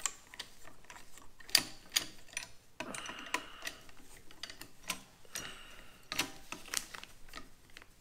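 Small screwdriver working screws out of a Harley-Davidson tour pack lock cylinder housing: irregular light clicks and ticks of the tool on the screws and the plastic-and-metal housing, with a few sharper clicks.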